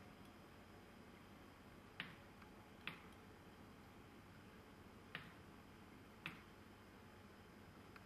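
Near-silent room tone broken by four sharp, short clicks at uneven intervals.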